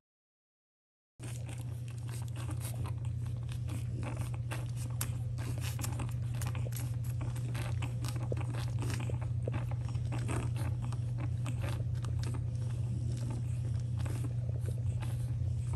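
Week-old French bulldog puppies suckling, a dense run of wet smacking and clicking sounds over a steady low hum. It starts about a second in, after dead silence.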